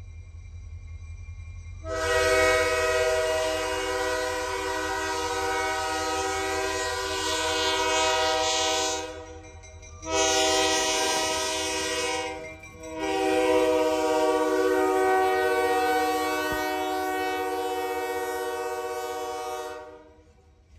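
Diesel freight locomotive's multi-note air horn blowing for a grade crossing: a long blast of about seven seconds, a shorter one of about two and a half seconds, then another long blast, ending as the locomotive reaches the crossing.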